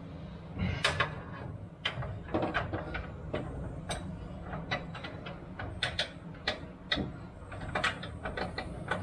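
Irregular metallic clicks and knocks of a socket on a cordless tool being jammed around a fuel-tank mounting nut, trying to seat on it. The loudest knocks come about a second in.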